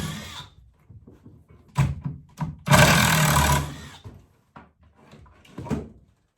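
Knocks, bangs and scraping of wood and metal as a built-in wooden bench box is pried apart inside an aluminium boat: a couple of sharp knocks, a louder second of grinding scrape, and another knock before the sound cuts off.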